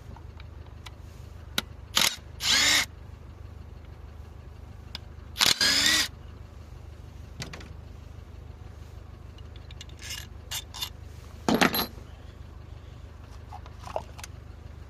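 Cordless power drill-driver run in three short bursts, spinning up and down each time, with light clicks of tools and parts between them: fasteners being undone to get at the ignition coil and spark plugs.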